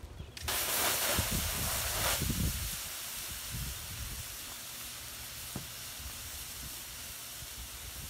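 Burning hair dryer being doused: a loud spraying hiss starts about half a second in and puts out the flames, then after about two and a half seconds eases to a quieter steady hiss as the charred plastic smokes.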